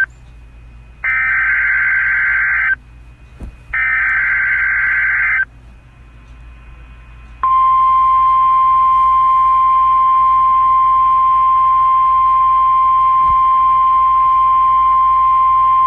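NOAA Weather Radio emergency alert signal for a tornado watch: the end of one burst of the SAME digital header, then two more bursts of about a second and a half each, then after a pause of about two seconds the steady 1050 Hz warning alarm tone, which begins about halfway through and holds.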